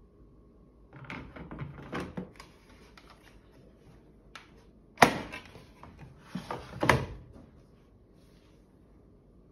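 Plastic clicks and knocks from a front-loading washing machine's detergent drawer being handled and slid shut, with one sharp clack about five seconds in and a few more knocks near seven seconds.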